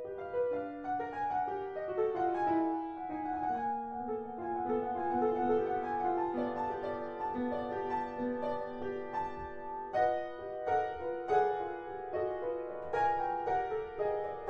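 Upright piano played solo: a classical piece of overlapping notes sitting mostly in the middle register, the notes struck more sharply and distinctly from about ten seconds in.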